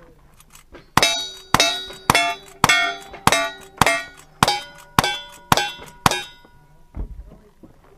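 A string of ten shots in quick succession, about half a second apart, each hit setting a steel target clanging and ringing.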